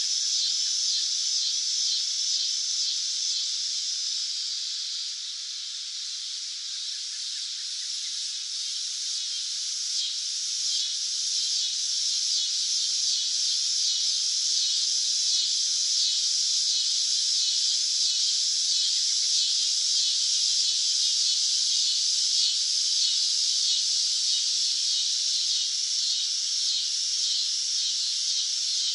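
Cicada song: a continuous high, shrill buzz with a fine pulsing texture. It dips in loudness about five seconds in, then swells back and holds steady.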